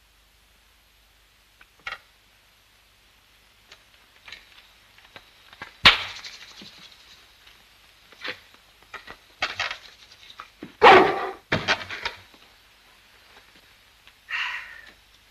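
St. Bernard dog barking several times, the loudest barks about eleven seconds in. A sharp knock comes about six seconds in.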